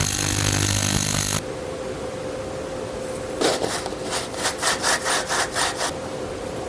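A steady machine hum that cuts off abruptly about a second and a half in, then a run of about ten quick back-and-forth rubbing strokes, roughly four a second.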